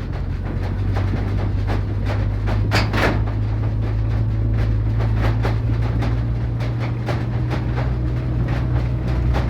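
Vehicle running with a steady low drone, with scattered knocks and rattles, the clearest about three seconds in.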